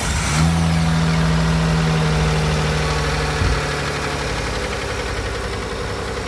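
Kia Carnival's 2.7-litre LPG engine running just after being started from partly cooled. A strong steady hum for the first three and a half seconds stops abruptly, then it settles into an idle. The idle carries a tapping like tappet noise, which the mechanic takes for piston slap.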